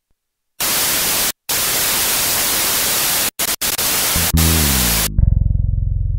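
Loud hiss of static, like a detuned TV, that cuts out briefly a few times, with a falling tone sliding down beneath it near the end. The static then stops and a low, pulsing electric buzz takes over.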